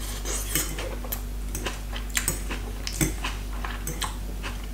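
A metal fork clicking and scraping against a ceramic salad bowl in short, irregular clicks, over a steady low hum.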